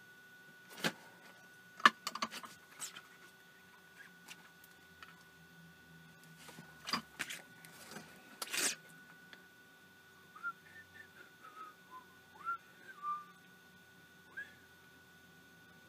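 Sharp clicks and taps of small tools and parts being handled on a workbench, the loudest about two seconds in and again near nine seconds. Then, from about ten seconds in, a few short, quiet whistled notes sliding up and down.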